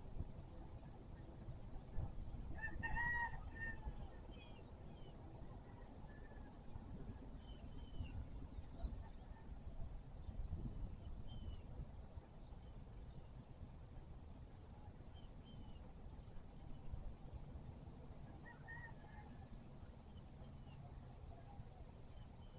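A rooster crowing about three seconds in, with a fainter crow later on, over a steady high insect drone and scattered small bird chirps.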